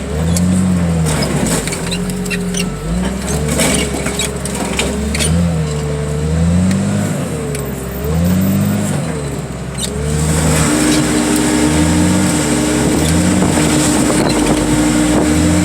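Heavy equipment's diesel engine revving up and down again and again as its hydraulics are worked, with scattered metal clanks. About ten seconds in, a steady hydraulic whine sets in and holds.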